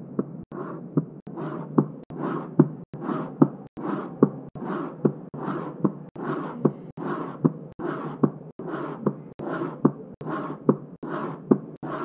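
Heart sounds imitated on a cardboard box: each beat a pair of knocks for S1 and S2, and after the second a rubbing hiss that fades away, mimicking the high-pitched early diastolic decrescendo murmur of aortic regurgitation. The beats repeat steadily, about one every 0.8 seconds.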